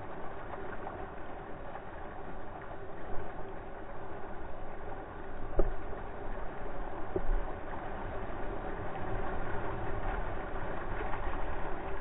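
Creek water rushing and splashing along the side of a 2014 Jeep Wrangler Rubicon as it fords a creek, close to the door, over the steady running of its engine. There are a couple of low thumps about halfway through.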